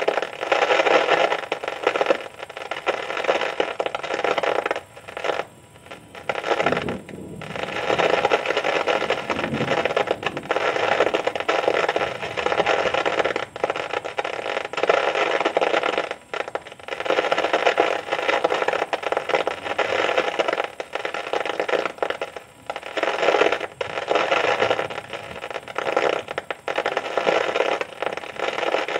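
Heavy thunderstorm rain pouring down in a dense, rattling hiss that dips out briefly several times. A low rumble of thunder comes in about seven seconds in and fades by about ten seconds.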